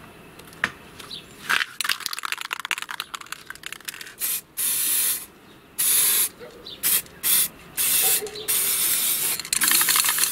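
Aerosol spray paint can hissing in a series of short bursts, some up to about a second long. Before the spraying there is a stretch of rapid, dense clicking.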